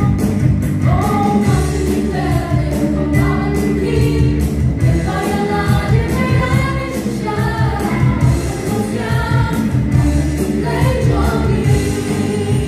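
Live gospel praise-and-worship song: several women singing together in harmony over a band of drum kit, bass guitar and acoustic guitar, with a steady drum beat.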